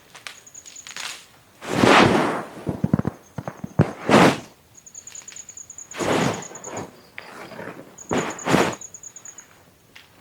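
Four loud rustling crunches about two seconds apart, with small sharp cracks between them, over an insect's high pulsed trill that comes and goes in short spells.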